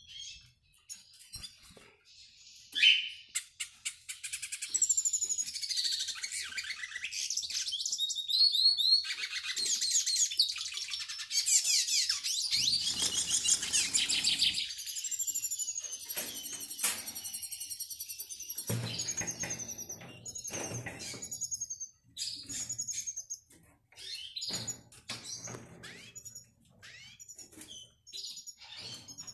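Male hooded siskin singing a fast twittering courtship song of high chirps and trills at a white canary hen. The song runs unbroken for over ten seconds, then breaks into shorter phrases, with a few low thumps from the cage.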